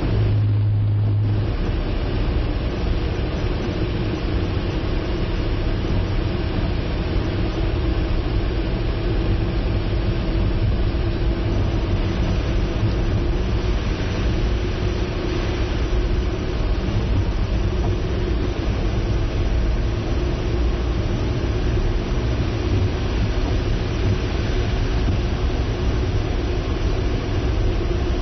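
Car driving, a steady rumble of road and engine noise, with a brief louder low hum in the first second or so.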